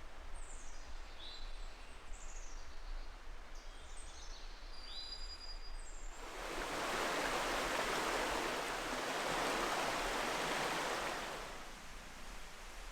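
Small birds chirping with short, quick sweeping calls through the first half. About six seconds in, a steady rushing noise swells up, holds for about five seconds, then fades away.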